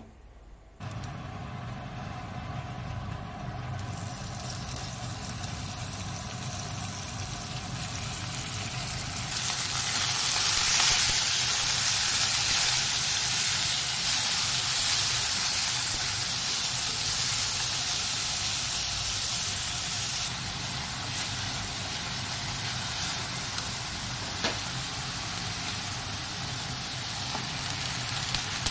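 Sliced pork frying in hot oil in a frying pan: a steady sizzle that jumps much louder about nine seconds in as the meat hits the pan, then eases to a quieter steady sizzle around twenty seconds in. A steady low hum runs underneath.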